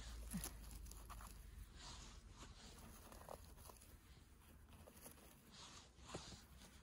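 Near silence with faint rustling and a few small snaps and clicks from hands picking mushrooms out of forest litter.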